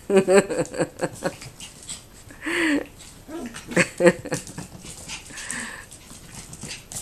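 Havanese puppies and an older Yorkshire terrier play-fighting, with a scatter of short dog yaps and cries.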